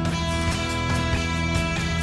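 Background instrumental music with guitar.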